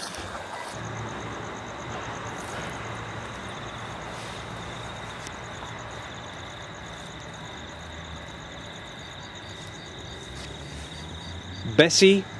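Night insects trilling steadily and high over a constant hiss from the camcorder's microphone; a voice cuts in loudly near the end.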